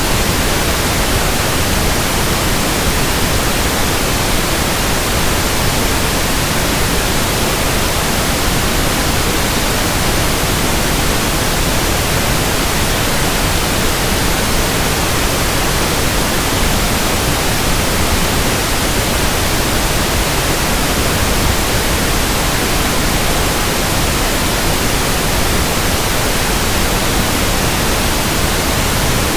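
Pink noise test signal, a steady even hiss across all frequencies, used for measuring a speaker or room's frequency response.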